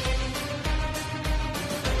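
Background music with a heavy, deep drum beat about every 0.6 s under held tones.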